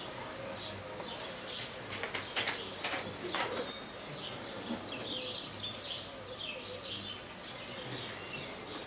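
Small birds chirping and twittering, many short repeated calls throughout. A few sharp clicks and knocks come about two to three and a half seconds in.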